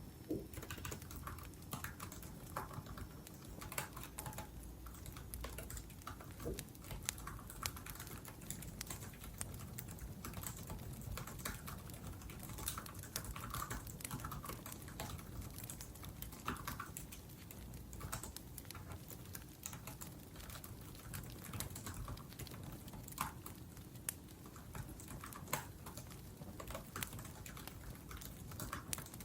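Laptop keyboard typing: irregular runs of key clicks, over the low crackle of a wood fire.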